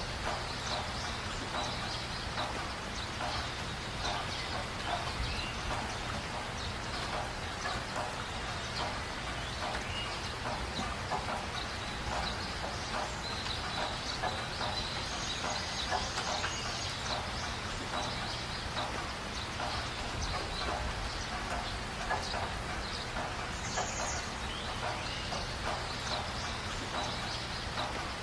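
Birds calling outdoors: a dense, irregular run of short chirps and clicks, with a few brief high-pitched calls, over a low steady hum.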